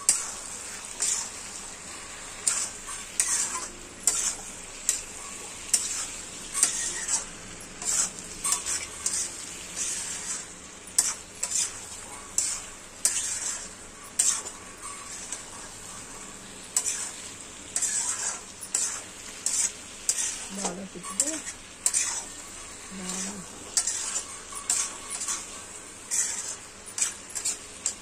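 A wooden spatula scraping and turning thick, oily chicken masala in a kadai, one or two strokes a second with a short pause about halfway through, over a steady sizzle of the frying gravy. This is the last stir as the cashews are folded into the nearly finished chicken fry.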